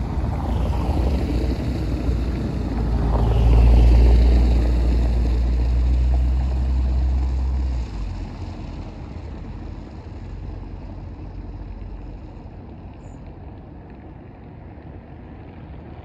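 Steam locomotive Q 350 and its train rolling into the station: a heavy low rumble that is loudest about four seconds in, drops sharply about eight seconds in, then fades away.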